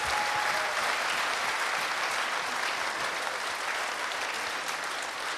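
A large audience applauding: many hands clapping in a dense, steady patter that eases slightly near the end.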